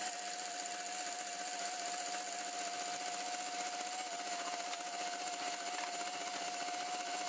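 KitchenAid Classic stand mixer running at speed with its wire whisk, whipping egg whites in a stainless steel bowl: a steady motor whine with one clear, high, unwavering tone. The whites are nearing soft peaks.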